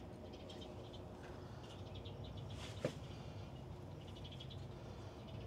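Faint outdoor wildlife chirping in quick repeated pulses over a low steady hum, with one short sharp click a little past the middle.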